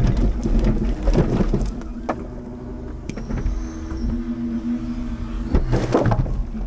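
Scania timber truck's diesel engine running steadily, with repeated knocks and clatter over it, loudest about a second in and again near the end.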